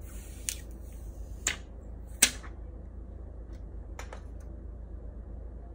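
Thin plastic protective film on a new Samsung Galaxy S10 Plus crinkling and crackling as it is handled and peeled. There are four sharp crackles, the loudest a little past two seconds in, over a low steady hum.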